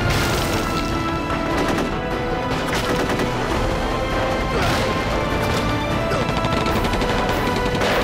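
Battle sound effects of continuous rifle and machine-gun fire, laid under a dramatic film music score.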